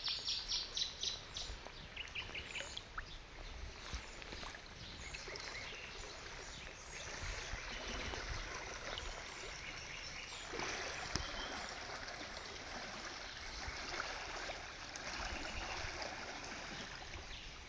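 River water flowing. A bird chirps in quick runs of notes near the start.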